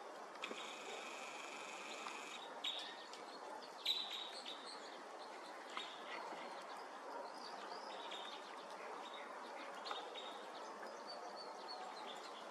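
Crossbills giving short, high chip calls, some in quick runs, over a steady background hiss.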